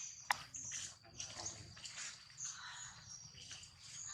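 Short high animal chirps over a steady high-pitched insect drone, with one sharp click about a third of a second in.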